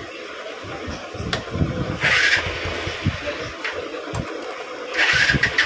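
Air and brake fluid hissing and sputtering out of a motorcycle's rear brake caliper bleed nipple as it is cracked open, in a short burst about two seconds in and a longer sputtering one near the end, with light knocks of the spanner between. This is air being bled from the hydraulic rear brake, whose pedal was not holding.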